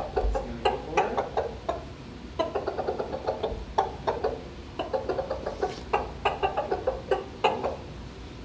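Rooster clucking in short, low, repeated notes, with a few sharp taps among them.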